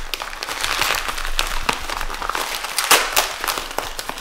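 White plastic bubble mailer crinkling and rustling as hands peel open its sealed flap, with a louder crackle about three seconds in.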